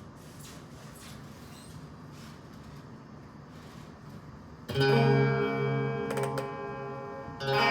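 A low steady hiss, then about four and a half seconds in a guitar chord is strummed and left ringing as it fades. A second chord is strummed near the end.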